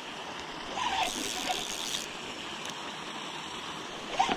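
Okuma Stratus-V spinning reel being cranked as line is reeled in against a bent rod, with the steady rush of river water behind it.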